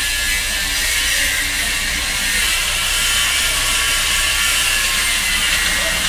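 Circular saw running steadily, a continuous high-pitched hiss and whine over a low hum.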